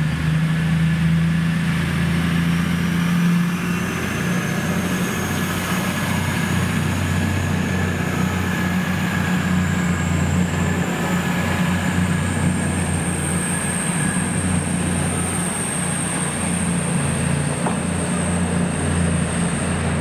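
Diesel train running steadily with a deep engine drone and a thin high whine that rises slowly in pitch partway through, then holds.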